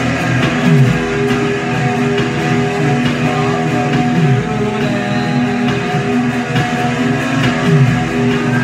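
Live jam with guitar played over steady droning tones. A low swoop falls in pitch about every three and a half seconds.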